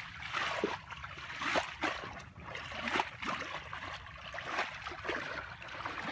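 Shallow muddy water splashing and sloshing in irregular bursts as a barefoot person wades through it.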